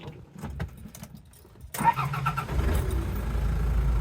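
A few light clicks, then about two seconds in the Land Cruiser BJ40's four-cylinder diesel cranks briefly and catches, settling into a steady low idle.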